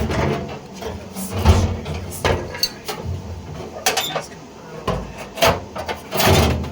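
Irregular knocks, clunks and rubbing of parts being handled and pushed into place, with the loudest clunks about a second and a half in, about five and a half seconds in, and near the end.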